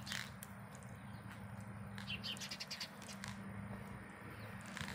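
Footsteps on a brick platform over a steady low hum, with a quick run of small bird chirps about two seconds in.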